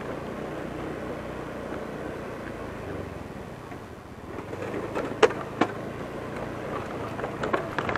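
Honda Beat scooter riding along steadily, its tyres knocking over the wooden planks of a bridge deck: two sharp, loud knocks a little past the middle and a few lighter ones near the end.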